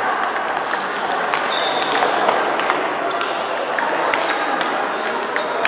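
Table tennis balls clicking off bats and tables in a rally, sharp irregular taps, over the steady din of a sports hall full of other matches and chatter.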